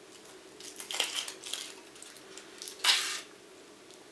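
Foil wrapper of a Kinder Surprise chocolate egg being peeled and crinkled by hand, with scattered small crackles and one louder, sharper crackle about three seconds in.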